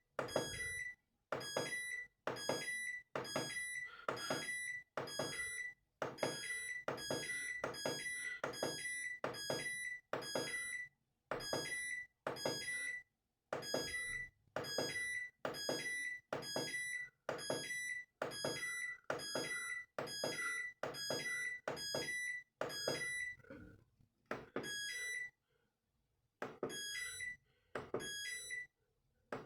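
Valberg washing machine control panel giving a short electronic beep with each step as the program selector is run through the programs, about one and a half beeps a second, with a few longer pauses near the end.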